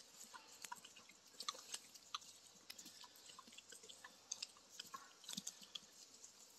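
Pigs chewing and biting at a whole brown trout, which may still be a little frozen: faint, irregular clicks and crunches.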